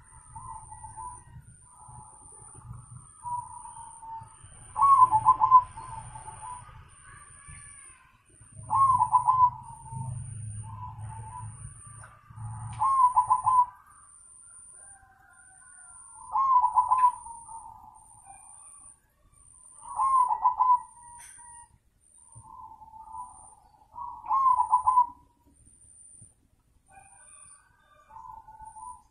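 Caged zebra dove (perkutut) cooing: a loud rolling coo phrase about every four seconds, six in all, with softer cooing between.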